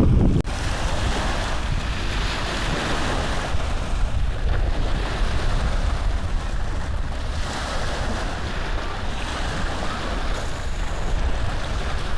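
Cross-stitch cloth and thread being handled as the needle is worked through it, heard as a steady rustling hiss over a low rumble that swells and eases every few seconds. There is a brief click about half a second in.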